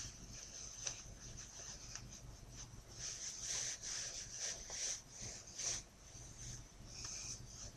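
Cloth of a ring sling rustling and rubbing in short, irregular strokes as it is pulled and adjusted.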